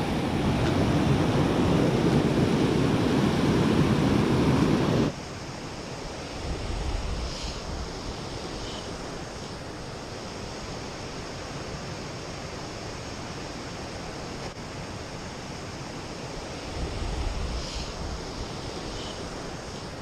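Loud, steady rush of river water pouring over a rock ledge that cuts off suddenly about five seconds in. A much quieter, steady background rush follows, swelling briefly twice.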